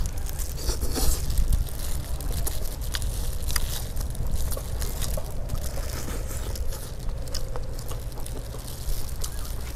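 Close-mic eating: chewing and biting honey-roasted chicken, with many sharp clicks and the crinkle of plastic gloves as the meat is pulled apart, over a steady low rumble.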